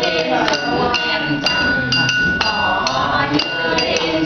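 Glass or china tableware being tapped, about two sharp clinks a second in an uneven beat, each one ringing briefly at the same pitch, with voices underneath.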